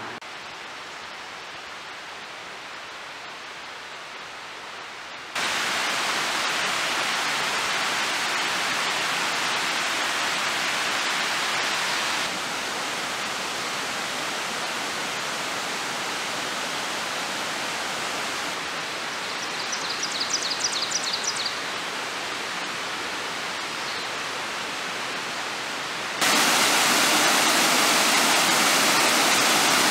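Rushing water of a forest creek pouring over small waterfalls, a steady hiss that jumps in level at several abrupt cuts and is loudest near the end.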